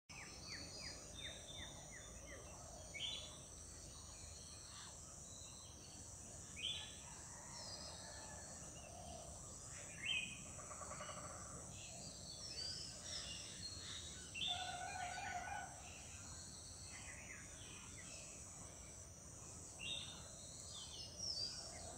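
Golden oriole calling in short bursts every few seconds, with other bird calls mixed in, over a steady high-pitched buzz.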